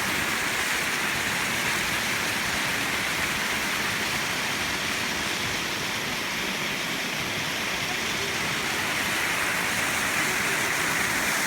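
Water from a natural spring running in a steady rush.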